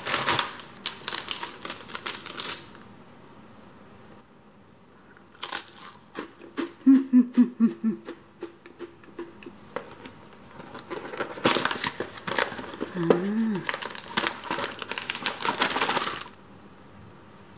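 Plastic snack wrappers crinkling as individually packed rusks are handled and opened, then a few crisp crunches of biting into a thin, dry garlic rusk about halfway through, and more crinkling of a bag of croissant rusks near the end.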